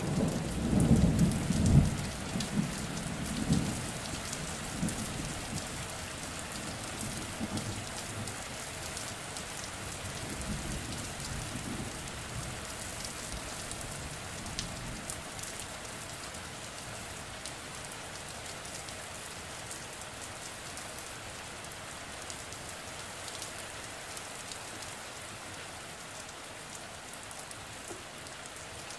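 Steady rain falling, an even hiss with scattered drop ticks. A deep roll of thunder is loud at the start and dies away over the first ten seconds or so.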